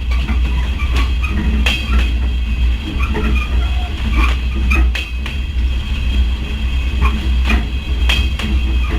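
Train running, with a heavy steady rumble and irregular sharp clanks and knocks throughout.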